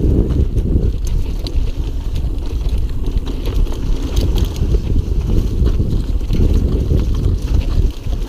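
Mountain bike rolling along a dirt forest singletrack: a steady rumble of wind on the microphone and knobby tyres on the ground, with scattered clicks and rattles from the bike over the bumps.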